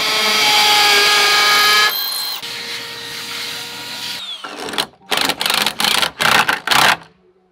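Cordless hammer drill boring through a wooden sill plate into a concrete slab. It runs with a steady whine, then drops to a lower, quieter run about two seconds in. After that comes a series of about six short bursts of a power driver setting concrete anchor screws, which stops just before the end.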